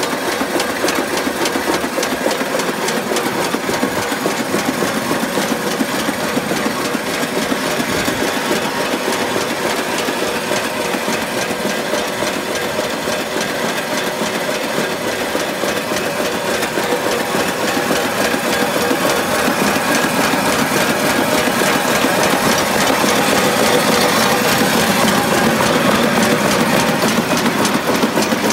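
Tong potato riddle running empty, its shaking screens and chain elevators making a fast, steady mechanical rattle that grows a little louder near the end.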